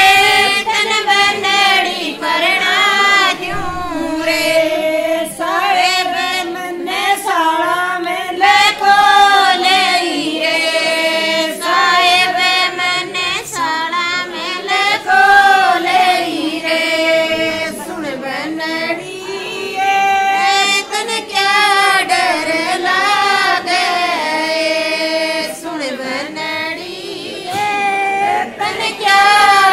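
High female voices singing a banna geet, a North Indian folk wedding song for the groom, in a continuous winding melody.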